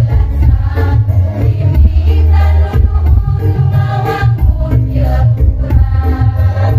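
Women's choir singing over a musical accompaniment with a heavy bass line.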